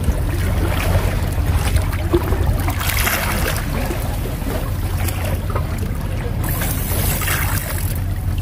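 Wind buffeting the microphone on an open seaside breakwater: a steady low rumble with a hiss that swells about three seconds in and again near seven seconds.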